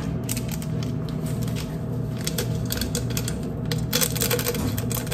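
Cut flowers being handled: scattered small clicks, taps and rustles of the stems and wrapping, over a steady low hum.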